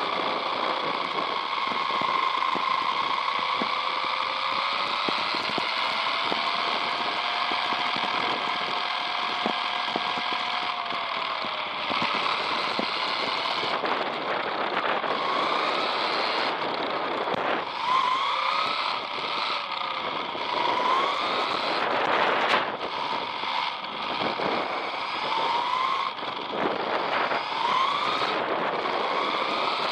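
Whine of a radio-controlled car's electric motor and gears, heard from a camera mounted on the car (a modified Tamiya M-05 chassis), over a steady hiss of the small tyres on asphalt. The whine holds fairly steady at first, then in the second half rises again and again in short sweeps as the car speeds up.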